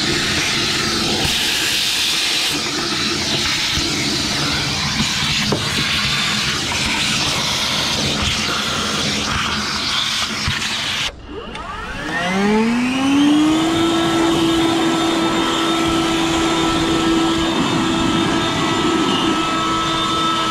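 Shop vacuum running with its hose working in an engine bay. After a brief cut about eleven seconds in, the blower motor starts and spins up over a couple of seconds to a steady high whine to blow the engine bay out.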